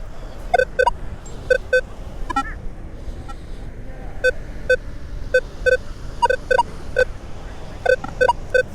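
Metal detector giving short target beeps as the coil is swept back and forth, about fifteen of them in irregular ones and twos. Most are a low tone, with a few higher-pitched ones mixed in.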